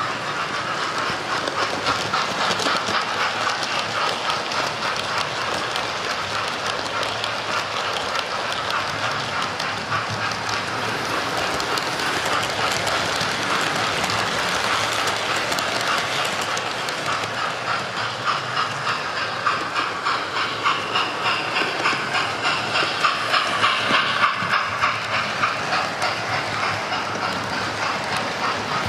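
Model trains running around a model railway layout: a fast, continuous clicking and clatter of small wheels over the rail joints, with motor hum. It gets louder and pulses more strongly in the second half as coaches run close by.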